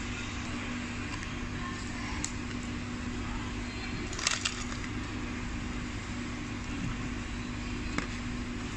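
Paper food wrapper crinkling and crackling as it is handled, loudest in a short crackly burst about four seconds in, then a brief crisp crack near the end as a piece of crunchy fried chicken is pulled apart, over a steady background hum.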